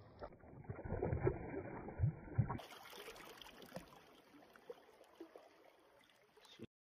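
Shallow water sloshing and splashing around hands as a fish is released, with a few low thumps in the first two and a half seconds. Then quieter lapping of water over rocks, which cuts off suddenly near the end.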